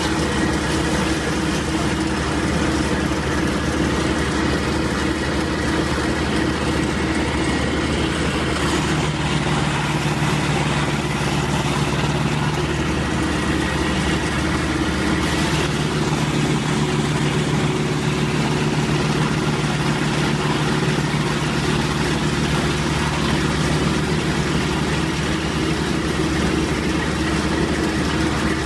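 Mobile whole-tree wood chipper running: a steady engine drone, with a shift in its tone about halfway through.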